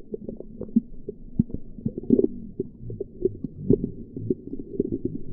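Muffled handling noise on the camera: irregular knocks and bumps, with all the high sounds cut off.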